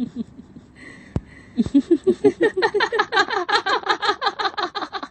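A voice laughing in rapid repeated 'ha' syllables, about five a second: a short burst, a pause with a single click, then a long cackle that climbs higher in pitch and gets louder, typical of a horror-style ghostly laugh.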